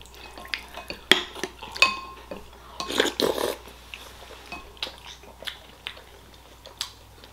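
White porcelain soup spoon clinking and scraping in a small ceramic bowl, a few light knocks with the busiest stretch about three seconds in.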